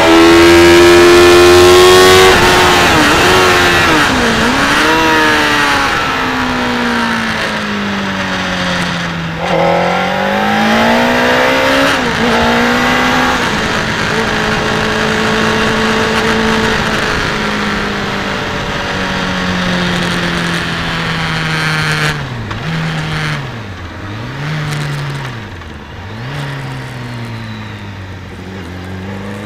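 Onboard engine sound of a track vehicle slowing off the circuit. The engine is at high revs and very loud for the first two seconds, then its note falls, picks up again for a few seconds about ten seconds in, and sinks lower, with several quick drops and blips of the revs near the end before settling at low revs.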